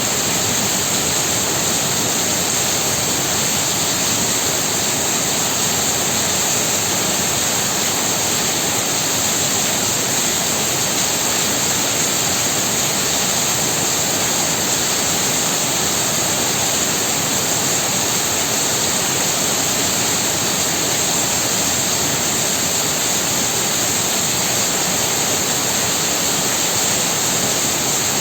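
Heavy rain pouring down steadily, a dense, even hiss with no breaks or single drops standing out.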